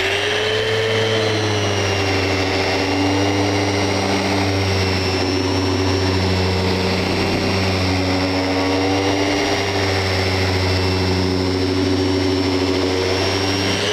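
Festool random orbit sander with 180-grit paper running steadily on a hardwood block, a dust-extraction hose drawing air through the pad: a constant motor hum under a high, even whine.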